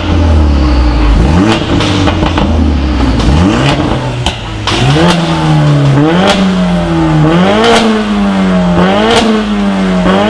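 Modified car engine revving, deep and low at first with a few short blips. It then jumps up in pitch about every second and a half and sags back, with a sharp crack at each jump.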